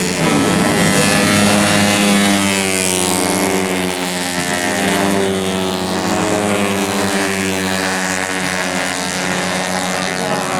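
Several tuned 130 cc automatic scooters racing, their engines held at high revs with pitches that rise and fall and overlap.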